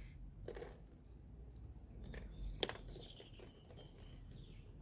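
Faint clicks and knocks of small porous filter stones (alpha grog and lava rock) being handled around a pond plant's pot, with the loudest knock about two and a half seconds in.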